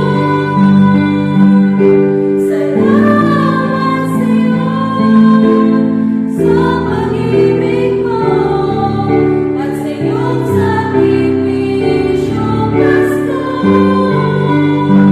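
Christian worship song: a choir-style group of voices singing over sustained keyboard chords, with light cymbal strokes every couple of seconds.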